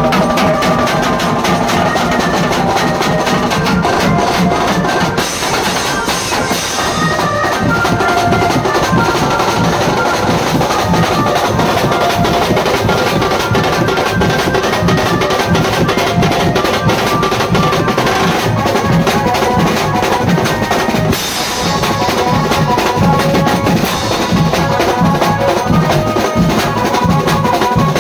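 Indian street-band dhamaka music: loud, fast, dense drumming on bass drum and snare under a melody line, with a brief break about three quarters of the way through.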